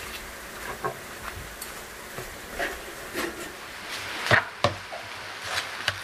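Kong-bulgogi (bean sprouts, vegetables and meat in seasoning sauce) cooking in a pan with a steady light sizzle, broken by a few sharp knocks, the loudest two close together about four and a half seconds in.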